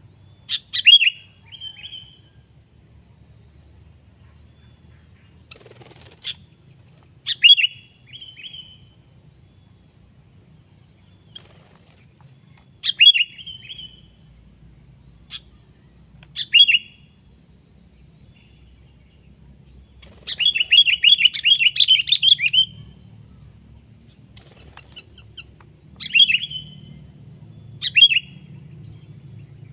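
Sooty-headed bulbul (kutilang) calling in short bursts of bubbly notes every few seconds, with a longer rapid run of notes a little past two-thirds of the way through.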